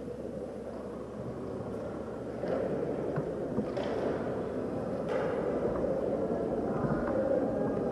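Indistinct noise of a seated congregation in a large reverberant hall: murmuring and shifting, with a few light knocks. It grows louder about two and a half seconds in.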